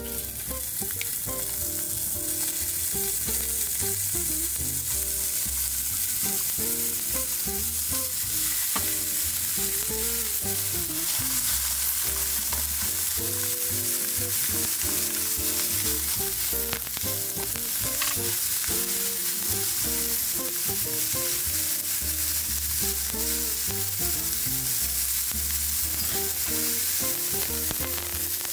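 Meat frying with a steady sizzle throughout. Background music with a bass line plays underneath.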